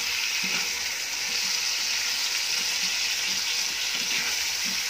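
Raw plantain slices, onion and tomato sizzling in oil in a kadai while a spoon stirs them: a steady frying hiss with light stirring sounds.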